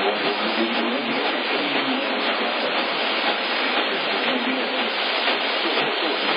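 Steady static hiss from a radio receiver, even and unchanging, with no alert tones or voice.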